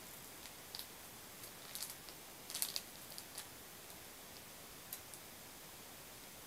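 Faint sounds of biting into and chewing a Big Katsu, a chewy breaded fish cutlet snack, held in its plastic wrapper: a few soft, scattered clicks and crackles, the clearest about two and a half seconds in.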